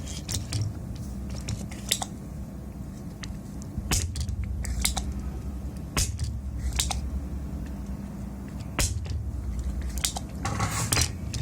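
Sharp clicks and taps from handling a power supply circuit board and tools on a workbench, scattered every second or two, over a steady low hum. A denser run of scratchy rustling comes near the end.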